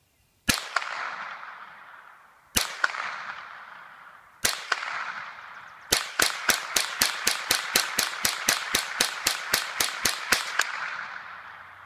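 Remington 597 semi-automatic .22 rimfire rifle firing CCI rounds: three single shots about two seconds apart, then a fast string of about twenty shots at roughly four a second, each shot trailed by an echo. The fast string is the shooter trying to see how fast he can fire the semi-auto.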